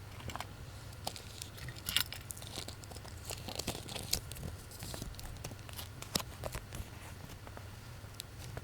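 Plastic packaging crinkling and rustling as it is handled, with scattered small sharp clicks and ticks of a small plastic toy, busiest in the middle.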